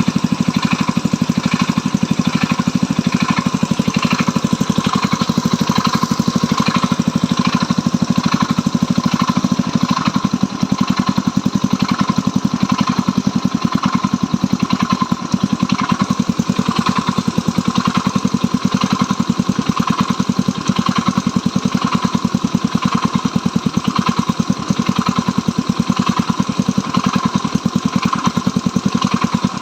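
Stels Kapitan motorcycle engine idling steadily, with a knock that recurs about once a second. The owner suspects the clutch bell is rubbing.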